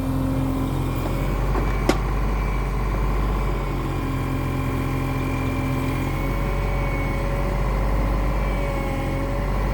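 Cat 303 mini excavator's diesel engine running steadily while it digs, with a single sharp knock about two seconds in.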